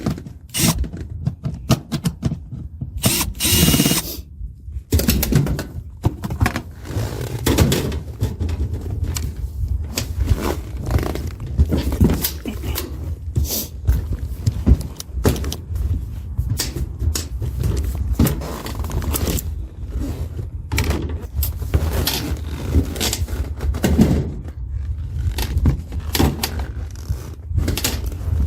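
Irregular knocks, thunks and scrapes of hands and tools at work, over a steady low rumble.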